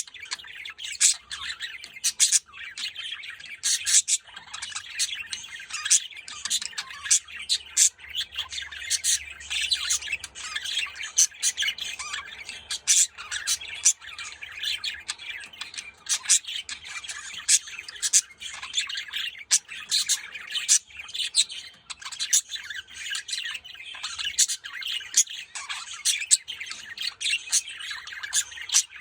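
Pet budgerigars chattering: a continuous warbling chatter with frequent short, sharp chirps and squawks throughout.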